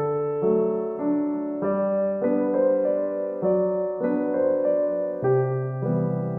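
Background keyboard music with a piano sound: a simple melody over chords, the notes changing about every half second.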